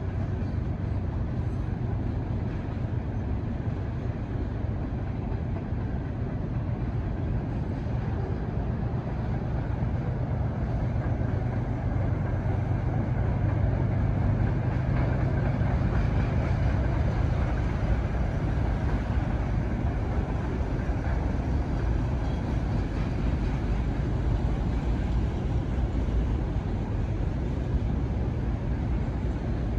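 Freight train cars rolling past on the rails: a steady low rumble that swells a little about halfway through.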